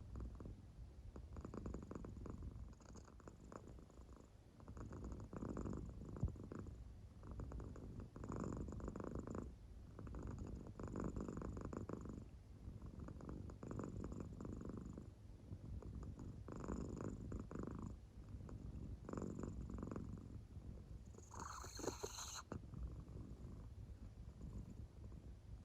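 American Shorthair cat purring softly in deep sleep, the purr swelling and fading with each breath every two to three seconds. Near the end there is a brief, hissier noise.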